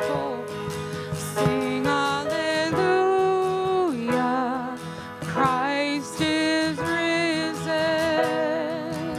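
Church worship band playing a slow song: a melody held in long notes with vibrato over sustained chords.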